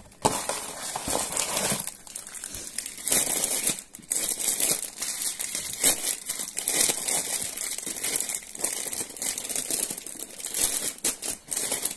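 Plastic snack wrappers and pouches crinkling as they are handled and packed into a plastic bin, in bursts with a couple of brief pauses.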